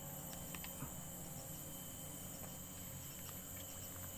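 Insects buzzing in a steady high-pitched drone, with a few faint ticks in the first second.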